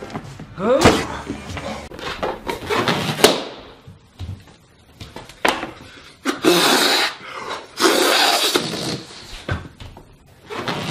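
A few knocks and clicks with a short rising pitched sound, then two long breaths blown hard into a rubber balloon to inflate it.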